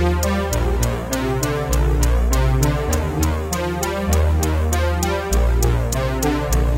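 Electronic music: synthesizer chords and a deep bass line over a steady drum-machine beat, with high ticks about four times a second.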